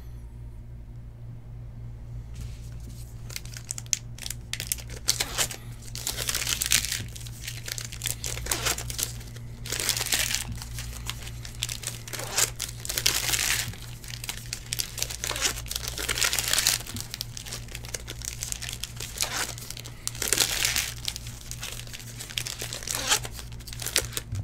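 Foil wrappers of trading card packs being torn open and crinkled by hand, in a string of short noisy bursts. A steady low electrical hum runs underneath.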